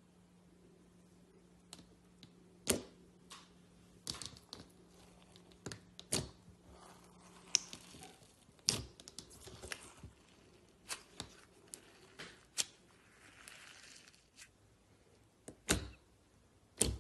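Slime being handled, squeezed and poked, giving irregular sticky clicks and pops with short crackles between them.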